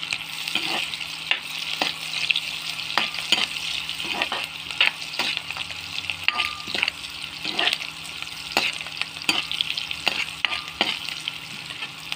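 Chopped onion, garlic and green chilli sizzling in hot oil in a metal kadhai while a steel ladle stirs them. The ladle scrapes and clacks against the pan, irregularly, about twice a second.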